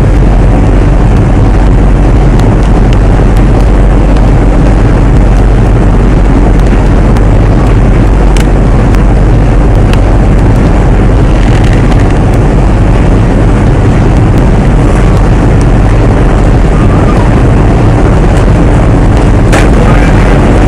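A ship's engine hums in a loud, steady low drone, with rushing wind and sea noise over it, aboard a ship under way.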